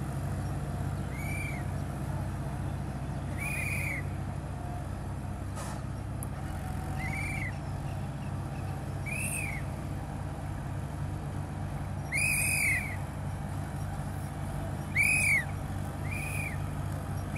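Tractors puddling a flooded paddy field at a distance, their engines a steady low drone. Over it come short whistle-like calls, each rising and falling, every two to three seconds; two in the second half are the loudest.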